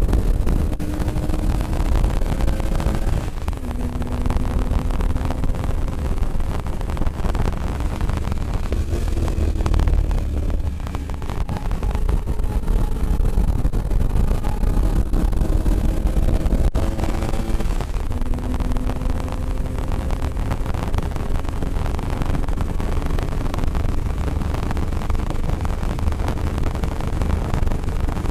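Car engine at full track pace, its pitch climbing steadily under load and dropping sharply at gear changes a few seconds in and again about two-thirds through, over heavy wind and road noise in the cabin.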